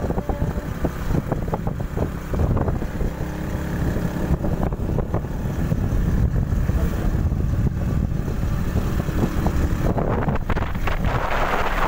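Wind buffeting the microphone over the low rumble of a vehicle travelling along, with a stronger gust of hiss near the end.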